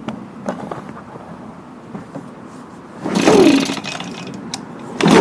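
Recoil starter rope of an Echo ES250 two-stroke handheld blower being yanked twice, about three seconds in and again at the end, each pull a short whir that rises and falls. The engine is being cranked on ether sprayed in place of a broken primer bulb and does not run between the pulls.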